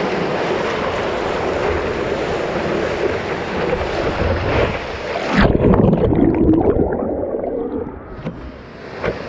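Whitewater rushing and splashing over a surfboard's nose-mounted action camera as the board rides a broken wave. About halfway through, the sound suddenly turns muffled and low and churns heavily, then dies down near the end.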